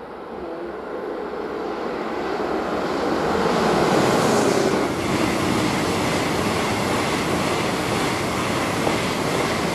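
Deutsche Bahn ICE high-speed electric train passing at speed: a rushing sound of wheels on rail that builds over about four seconds, then holds steady as the carriages go by.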